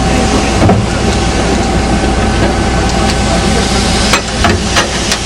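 Locomotive rolling the last metre onto its coaches to couple up: a steady rumble and hiss, with a knock under a second in and a few sharp metallic knocks in the last second and a half as it closes on the train.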